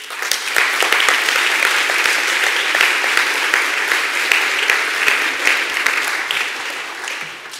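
Audience applauding: a dense patter of many hands clapping that fades out near the end.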